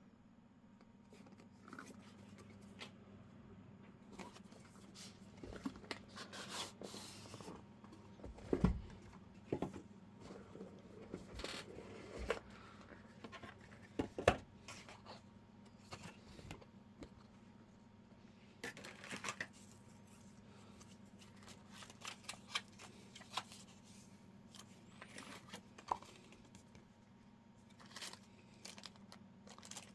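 Packaging being handled and opened: irregular rustling, crinkling and tearing of paper or plastic, with scattered light clicks and two louder knocks.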